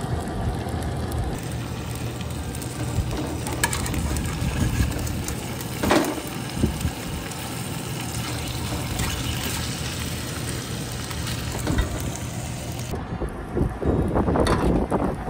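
Eggs frying in a pan on a camp stove, a steady sizzle with a few short scrapes and taps of a metal spatula. Wind rumbles on the microphone, louder near the end.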